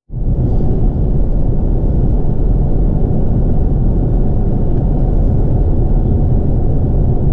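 Steady low road and engine rumble inside a moving car's cabin, cutting in suddenly at the start.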